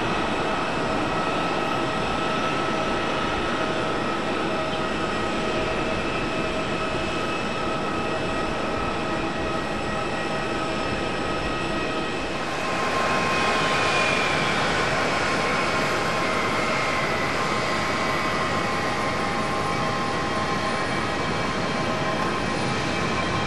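Airliner jet engines: a steady rushing noise with several high whines. About halfway through it grows a little louder and one whine slowly falls in pitch.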